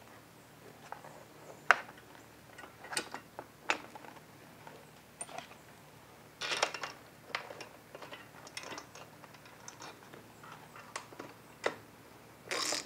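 Scattered light metal clicks and clinks of bolts, washers and a steel bracket being handled and fitted to a motorcycle rack mount, with a short clattery burst near the end as a socket goes onto a bolt.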